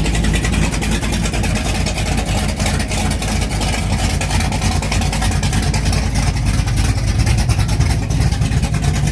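Hot rod car engine running steadily while it warms up after a cold start, a loud, even rumble of exhaust pulses.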